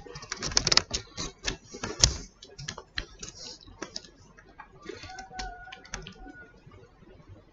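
A kitten suckling on a person's earlobe right by the microphone: rapid, irregular wet clicks and smacks, densest and loudest in the first two seconds and sparser after. About five seconds in, a faint thin tone is held for about a second and a half.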